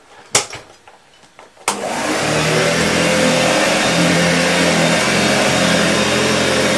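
Hoover Junior model 1346 upright vacuum cleaner switched on with a click about a second and a half in, its motor spinning up and then running steadily while vacuuming up leftover salt.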